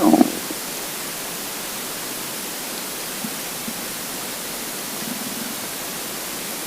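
Hungry, empty stomach giving a short growl right at the start, then a few faint gurgles further on, over a steady hiss.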